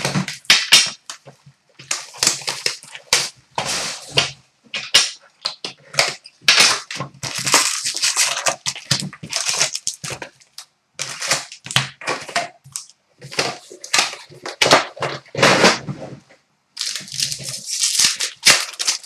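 Trading-card packs being pulled from a cardboard hobby box and handled, with irregular crinkling and rustling of the foil wrappers and cardboard.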